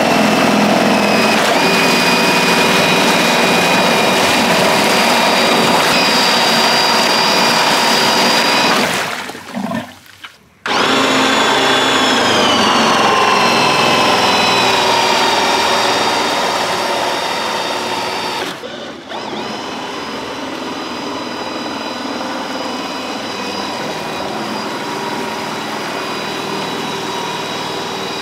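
Power drill driving a homemade jet-drive pump: a high, steady whine over the rush of the water jet. The sound breaks off about ten seconds in, the whine drops in pitch a couple of seconds later, and it runs quieter from about two-thirds of the way through.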